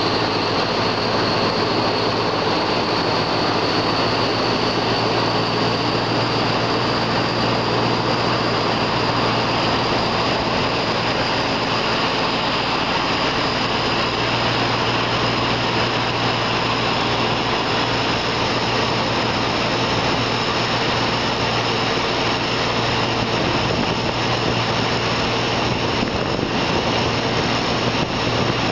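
Diesel-hauled passenger train pulling out of a station, heard from a carriage: a steady engine drone and running noise, with a high whine that rises slowly in pitch as the train picks up speed.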